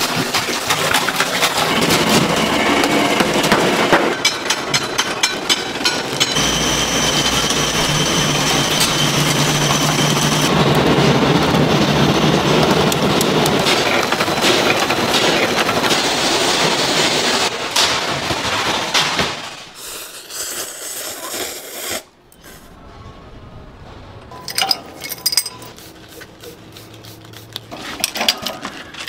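Loud running of noodle-factory machinery, a dense clatter and hum with a steady high whine partway through. About twenty seconds in it gives way to quieter scattered metal clinks and knocks.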